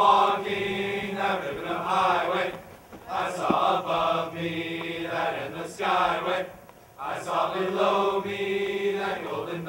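A mixed choir of young men and women singing unaccompanied, in three long phrases with brief breaths between them about three and seven seconds in.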